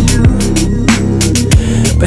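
Hip-hop/R&B instrumental beat: a steady bass line with hi-hats and a deep booming kick drum that hits twice.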